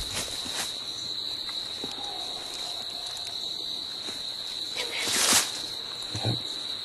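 Steady high-pitched insect chirring, such as crickets. About five seconds in comes a rustle of footsteps in dry leaf litter.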